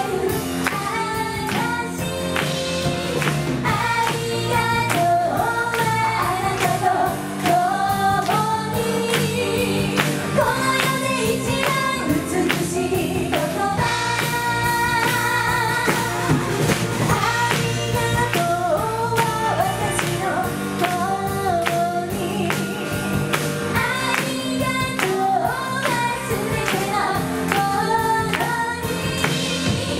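Live pop band playing, with women's voices singing the melody over drum kit, electric bass and electric guitar.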